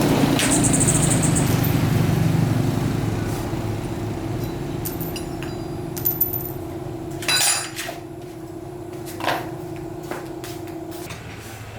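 Motorbike engine running steadily, growing fainter over the first few seconds, then a few sharp metallic clinks and knocks.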